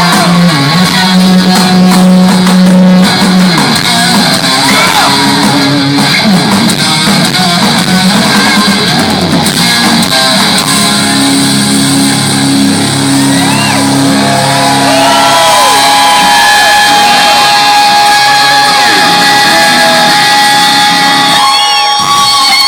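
Live rock band playing loud, with an electric guitar bending and holding notes.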